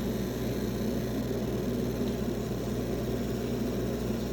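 Laser engraving machine running as it etches through a magazine's coating: a steady mechanical hum that holds constant with no breaks.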